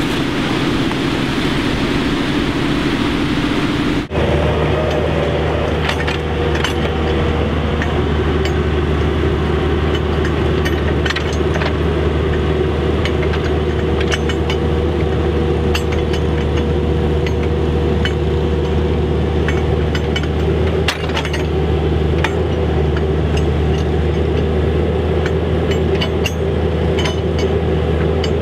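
Compact excavator's diesel engine running steadily, with scattered light metallic clinks from the hydraulic drive attachment working a ground-anchor stake. For the first few seconds a different steady noise is heard before the engine takes over.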